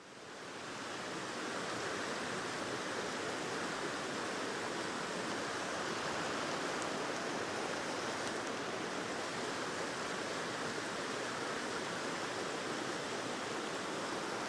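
Shallow river running fast over rocks in a broken riffle: a steady rushing of water that fades in over the first second or two.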